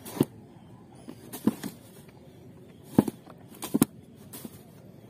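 A handful of short, sharp taps and knocks at irregular intervals, the loudest about three seconds in and again just before four seconds.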